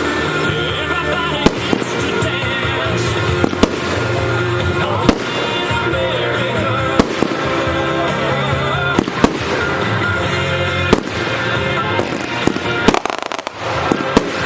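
Fireworks bursting in sharp bangs, one every second or two, over music with a steady pitched backing.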